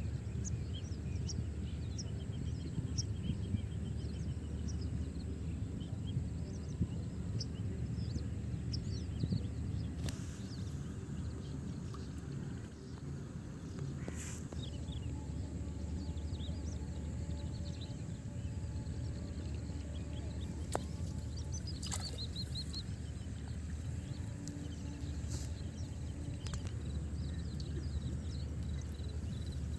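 Outdoor ambience: a steady low rumble with scattered high bird chirps, thickest in the first ten seconds, and a few sharp clicks around the middle.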